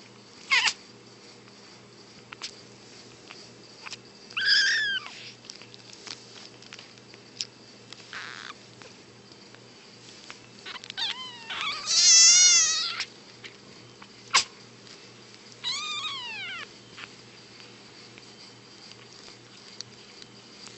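Kittens meowing: a short call, then a long wavering meow past the middle that is the loudest sound, then a falling meow near the end. Two short, sharp kitten sneezes come near the start and just after the long meow.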